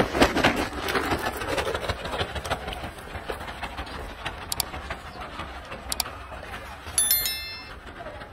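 Crackling rustle of a plastic bag being shaken as corn is scattered for a troop of macaques, loudest in the first couple of seconds. Later come two sharp clicks and a short electronic chime from a subscribe-button animation.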